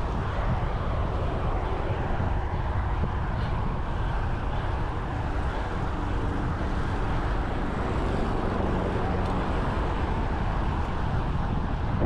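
Wind rushing over the microphone of a bicycle moving at speed on a road, with the noise of passing car traffic. A steady, dense rush heaviest in the low end, with no distinct events.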